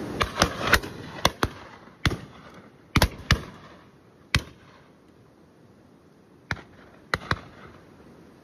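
Shotguns firing on a driven game shoot: about a dozen sharp shots, some in quick pairs as from double-barrelled guns. They come thick and fast for the first four seconds or so, then two or three more come later.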